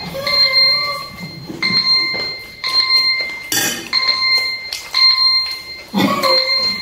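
Phone timer alarm ringing, a high electronic tone repeating about once a second, signalling that the challenge time is up. Brief voices come in near the start and the end.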